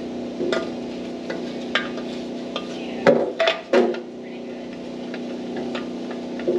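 Metal knocks and clanks of a Volvo S60R's rusted stock exhaust pipe being worked loose by hand, with scattered single knocks and a loud cluster about three seconds in, over a steady hum.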